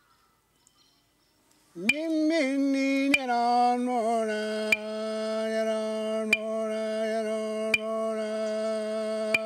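Chant-like singing: after a short quiet, a voice slides into a note, wavers, then holds one long steady tone. Sharp taps mark time about every second and a half.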